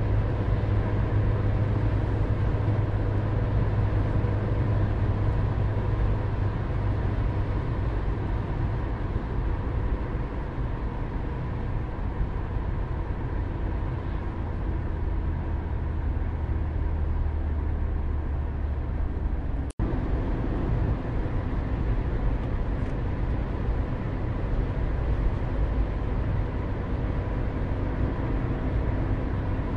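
Car driving at road speed, heard from inside the cabin: a steady low engine and tyre rumble. The sound cuts out for an instant about twenty seconds in.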